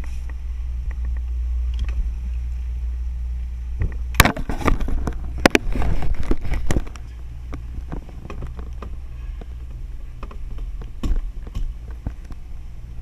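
Steady low rumble of a fishing boat under way. About four seconds in come some three seconds of close knocks and rattles, then scattered lighter clicks.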